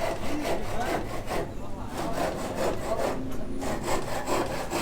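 Wood being hand-sawn in rapid back-and-forth rasping strokes.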